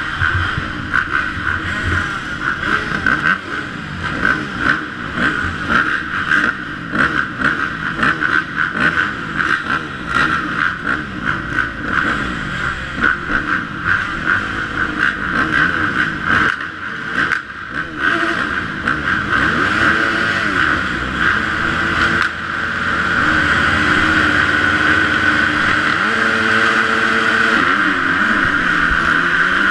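Several dirt bike engines at a motocross starting gate, including the rider's Yamaha YZ250F four-stroke single, idling and being blipped in uneven revs. From about two-thirds of the way in, the revs build and hold high and steady, as riders hold the throttle open waiting for the gate to drop.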